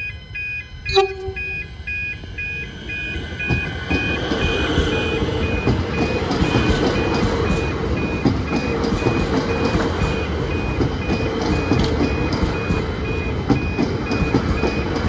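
Reversing alarm on a heavy works vehicle beeping steadily, with the vehicle's engine running and growing louder about three and a half seconds in. A single sharp knock sounds about a second in.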